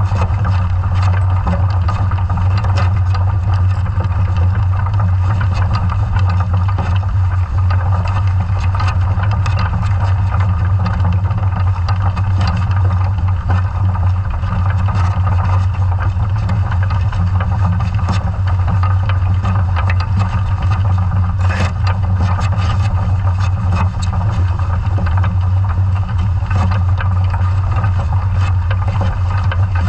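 Underwater noise of a scallop survey dredge under tow across the seabed: a steady low hum with irregular clicks and rattles, and a sharper crackle about twenty-one seconds in.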